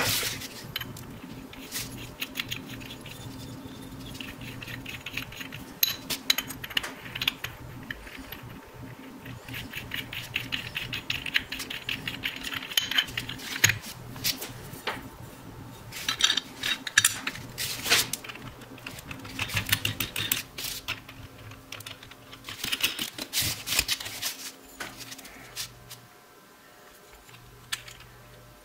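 Small metal parts clicking and clinking as a tail light is assembled by hand: hex nuts, threaded bulb sockets and the machined aluminum housing and steel bracket handled and set down on cardboard, in irregular bursts. A steady low hum runs underneath and fades out near the end.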